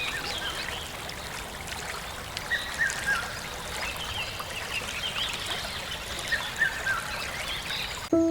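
Wild birds calling, short chirping phrases repeated every second or so over a steady hiss of outdoor ambience; the ambience cuts off abruptly near the end.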